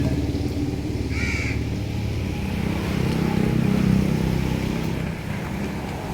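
A crow caws once, about a second in, over the steady low rumble of an engine running nearby.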